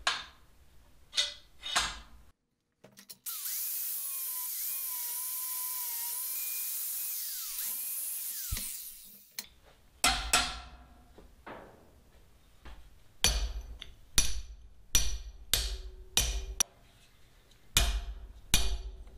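A power tool runs on the steel of the nipper joint for about six seconds, a steady hiss with a wavering whine. It is followed by about a dozen unevenly spaced hammer blows against the anvil, driving the worn rivet out of a pair of GE farrier hoof nippers, each blow with a short metallic ring.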